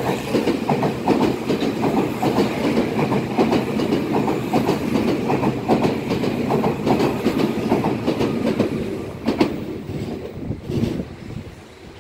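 Meitetsu 2200 series and 9100 series electric limited express passing through the platform at speed without stopping. A steady rumble with a rapid clickety-clack of wheels over the rail joints; the last wheels clack past about nine to ten seconds in and the noise dies away.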